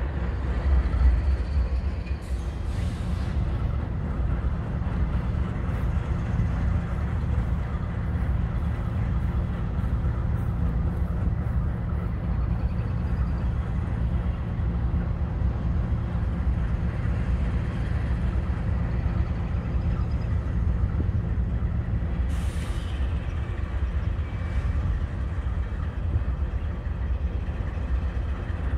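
Distant GE C40-9W diesel locomotive's V16 engine running at low throttle, a steady low rumble. A short hiss of released air about 22 seconds in, with a fainter one near the start.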